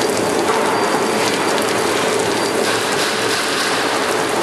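Fish filleting machine running steadily: a continuous mechanical clatter of fine rapid ticks over a steady hum, with a rain-like hiss.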